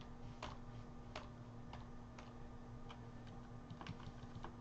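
Faint, irregular keystrokes on a computer keyboard, roughly one or two taps a second, over a low steady hum.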